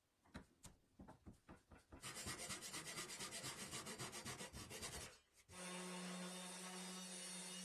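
Rapid rubbing strokes on wood, like sanding or rasping, about ten a second, after a few scattered scrapes. Near the end, a small electric motor starts and runs with a steady hum.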